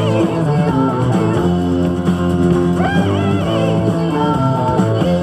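A rock song with guitar and singing, played through the Emerson CTR-965 boombox's speakers.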